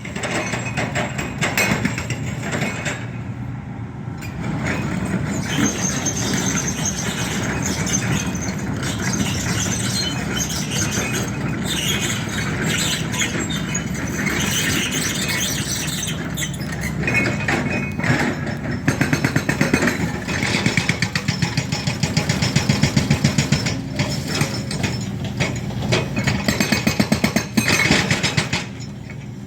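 Heavy diesel construction machinery running and moving as a loaded dump truck heads out with soil, with a high squeal over the engine. In the last third a run of regular loud pulses, about two a second, comes in over it.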